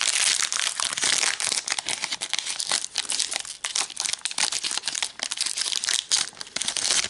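Pokémon card booster pack's foil wrapper crinkling and crackling as it is handled and opened by hand, in a dense, irregular run of crackles.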